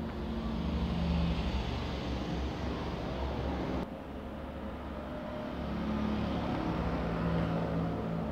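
Steady low rumble of a running motor vehicle, with a sudden break about four seconds in.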